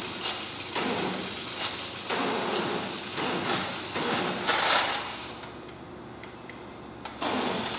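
Metallic clatter and clicking of 20mm cartridges being handled in a feed tray by a loading machine, with a steady mechanical noise underneath. The sound is loudest a little past halfway, then dies down.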